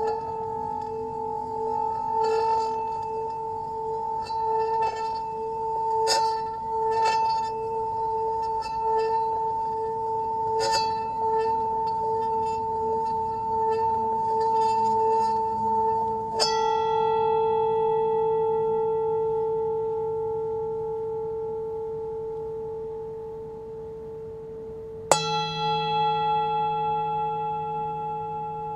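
Brass singing bowl rubbed around its rim with a wooden striker, humming on two steady tones with light ticks of the striker chattering on the rim. About sixteen seconds in the rubbing stops with a strike and the bowl rings on; it is struck again near the end and rings.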